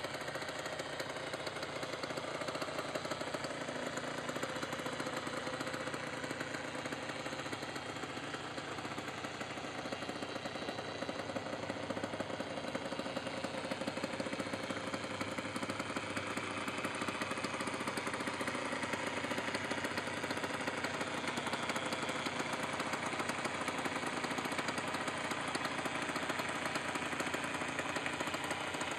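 A 2000 Aprilia ETX 125's single-cylinder two-stroke engine running steadily, with a rapid, even beat.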